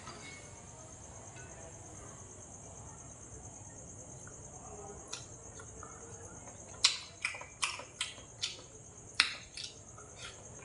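Eating sounds: from about seven seconds in, a run of sharp clicks, mouth smacks and chopsticks and a spoon against the food, the two loudest near the start and near the end of the run. Steady high insect chirring runs underneath throughout.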